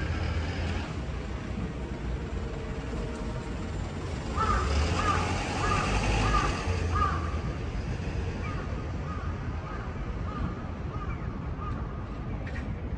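Bird calling: a quick run of about five short, harsh calls about four seconds in, then fainter calls a few seconds later, over a steady low rumble.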